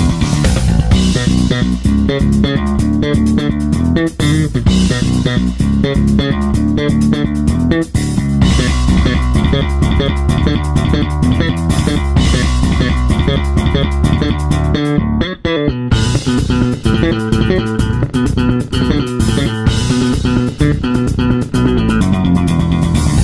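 Background music of bass and guitar over a steady beat, dropping out briefly about fifteen seconds in.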